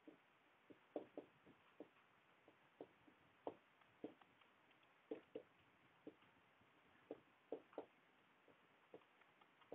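Faint marker writing on a whiteboard: short, irregular taps and strokes, about two a second.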